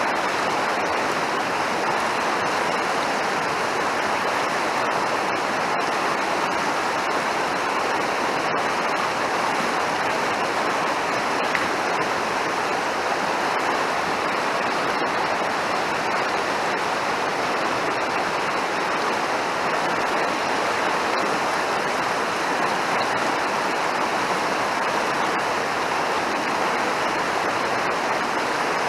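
Mountain stream rushing, a steady, even water noise without breaks.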